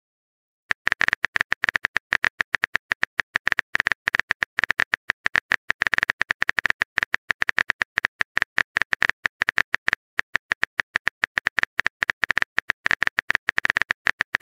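Rapid, irregular phone-keyboard tap clicks from a texting app's simulated typing sound effect, starting after a brief silence about a second in.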